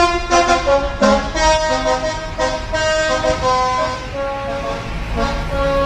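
A bus's multi-tone 'telolet' horn playing a quick melody of stepped notes, over the low steady running of the bus engine.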